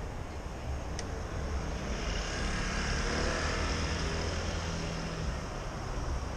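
A motor scooter passing close by: its engine sound swells and fades over a few seconds, loudest just past the middle, over a steady low rumble of city traffic.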